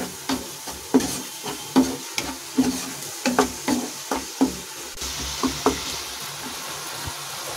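Wooden spatula scraping and knocking against a non-stick kadhai, about two to three strokes a second, while a tomato-and-spice masala fries in ghee. After about five seconds the stirring slows and a steady sizzle is left.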